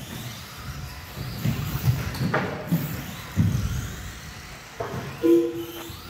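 Electric RC short-course trucks racing on an indoor carpet track, with irregular thuds and knocks as the trucks land and strike the wooden track borders. A short steady tone sounds near the end.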